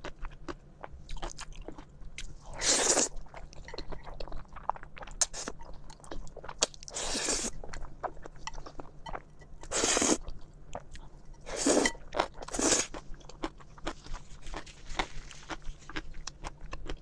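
Close-miked eating sounds: noodles slurped in about five loud, noisy bursts, with wet chewing and small clicks in between.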